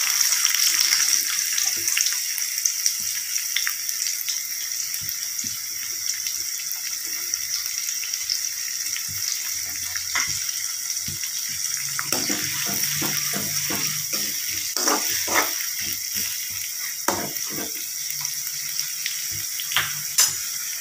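Chopped onions sizzling in hot oil in an aluminium kadai, a steady hiss with light crackles. In the second half comes a cluster of short taps.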